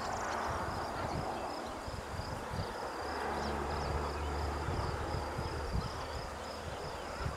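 Crickets chirping in a steady, high-pitched pulsing trill over a constant outdoor hiss. A low hum comes in for a couple of seconds around the middle.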